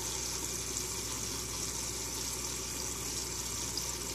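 Steady rush of running water with a faint low hum underneath.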